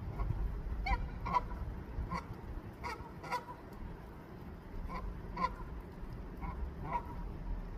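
Goose honking: about nine short honks, mostly in pairs with pauses between, a call to its mate.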